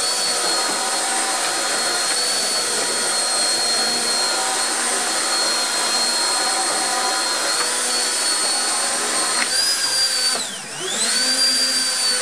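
Immersion blender motor running at high speed with a steady high whine as it purées vegetable soup in a stainless steel saucepan. About ten seconds in, it briefly slows with a sharp dip in pitch, then spins back up.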